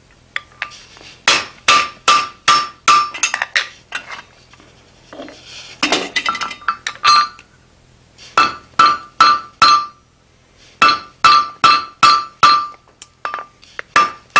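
Blacksmith's hand hammer striking red-hot steel bar stock on the anvil to draw it out, in quick runs of about three blows a second. Each blow gives a sharp, ringing clang. There is a pause of a few seconds with only a few soft knocks about four seconds in, and a short break near ten seconds.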